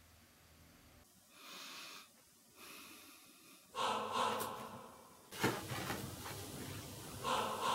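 A woman breathing heavily: a series of deep, breathy inhales and exhales, faint at first and louder from about halfway through.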